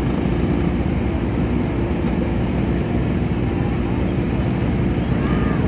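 Engines of a field of junior sprint cars and ATVs running together at low speed on a dirt track, a steady low drone.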